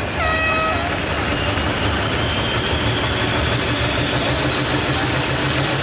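International Harvester pulling tractor's diesel engine running steadily at idle at the start line. A short steady tone sounds about a quarter second in, and a faint high whine rises slowly in the second half.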